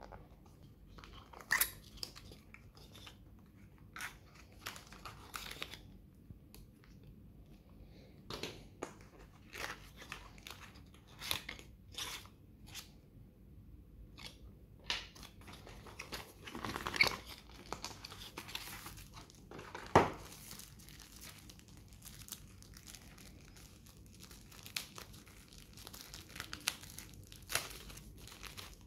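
Hands opening a small white cardboard box and unwrapping a clear plastic sleeve: cardboard flaps scraping and tapping and plastic crinkling, in scattered short rustles with a few sharper knocks, loudest about a second and a half in, around 17 seconds in and around 20 seconds in.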